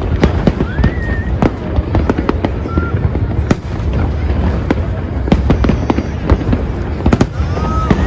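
Fireworks display: a dense run of sharp bangs and crackles, several a second, over a continuous deep rumble of booms. A few short whistles rise in pitch among the bangs.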